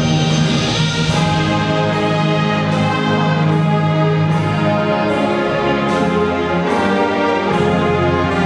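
Marching band playing: the brass section holds full sustained chords over a steady percussion beat, the harmony shifting about five seconds in and again near the end.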